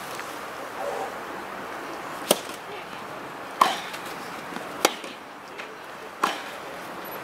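Tennis ball struck back and forth with rackets in a rally: four sharp hits about 1.3 seconds apart, starting about two seconds in.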